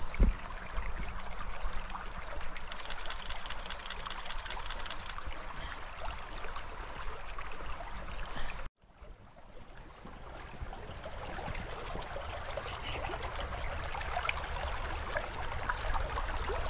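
Shallow river water running over a riffle, a steady rushing wash. About halfway through the sound cuts out abruptly and then fades back in.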